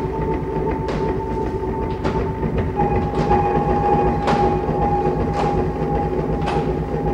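Mechanical, train-like performance soundtrack: a steady low rumble and two held droning tones, with a sharp hit about once a second. The higher tone steps down slightly about three seconds in.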